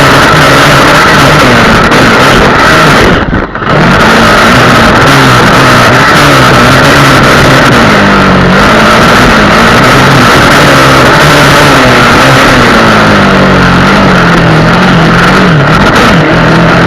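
Honda XR Tornado 250 single-cylinder four-stroke trail motorcycle engine running loud, its pitch rising and falling as the throttle is worked, over heavy steady noise. There is a brief drop about three and a half seconds in.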